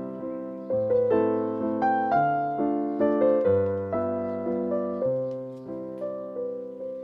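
Background piano music: slow, gentle chords struck and left to ring, a new chord about every second.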